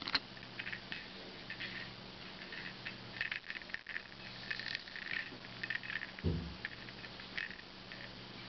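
Scattered soft scratches and light clicks, the sound of small movements on a fleece cat bed, over a low steady hum, with one dull thump about six seconds in.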